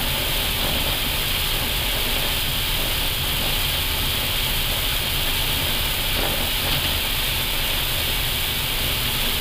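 Steady cockpit noise of an Airbus A320 rolling slowly off the runway just after landing: an even airflow hiss over a low rumble.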